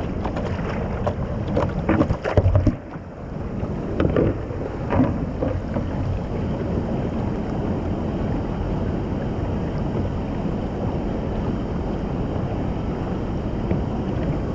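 Steady rush of whitewater on an artificial slalom course, with splashes and knocks during the first six seconds.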